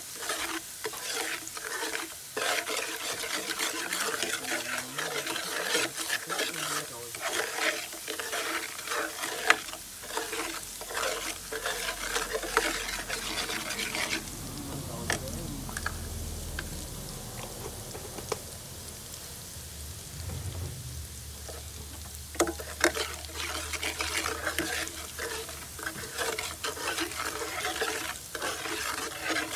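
Metal spatula scraping and stirring chili-garlic satay oil frying in a pan, over a steady sizzle. The scraping strokes let up for several seconds in the middle, where a low hum comes up, and return near the end.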